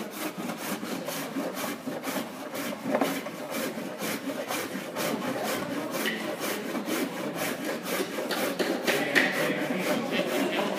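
Coarse rasp scraping back and forth over a hardened gypsum stucco tile in quick, even strokes, about three or four a second: the first rough levelling of the surface, which uncovers the colours beneath.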